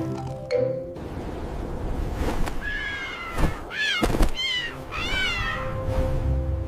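Domestic cat meowing about four times, the calls rising and falling in pitch, with a couple of short knocks among them.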